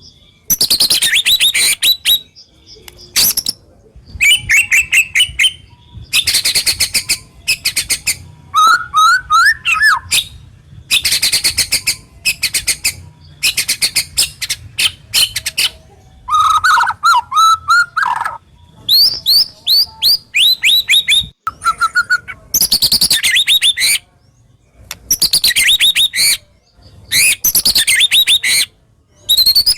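White-rumped shama (murai batu) singing loud, varied song phrases of one to two seconds with short pauses between them: rapid high trills and rattles, the harsh, sharp 'tembakan' phrases, mixed with lower slurred whistles.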